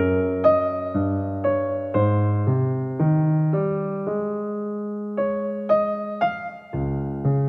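Background instrumental music: a slow melody whose notes change about twice a second, with one chord held for about a second midway.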